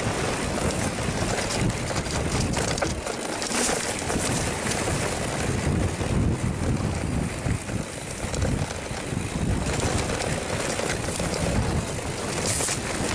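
Mountain bike riding along a trail: wind buffeting the camera microphone over the rolling noise of tyres on dirt, with scattered knocks and rattles from the bike.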